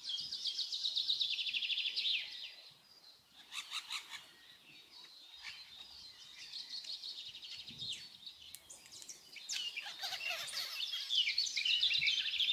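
Wild birds singing and chirping, with fast high trills; a rapid trill slides downward in pitch over the first two seconds, and the chirping thickens again near the end. A few sharp clicks come about four seconds in.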